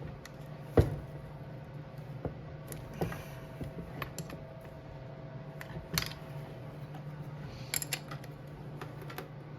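Hand tools clicking and clinking against metal as the cylinder bolts of a 1995 Kawasaki KX80 engine are undone. The clicks come irregularly, the loudest about a second in, over a steady low hum.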